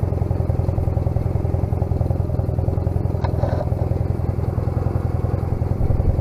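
Honda CMX250C Rebel's air-cooled 234 cc parallel-twin engine idling steadily while the bike stands still.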